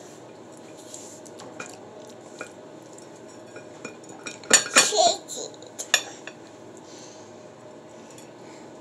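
Butter knife tapping and scraping against a plate while icing is spread on a cookie: a few light clicks, then a louder cluster of clinks about four and a half seconds in and another near six seconds.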